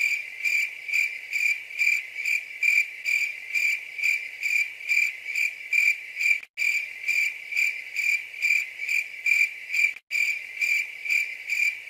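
Crickets chirping: a steady high trill pulsing about three times a second. It starts abruptly and cuts out briefly twice.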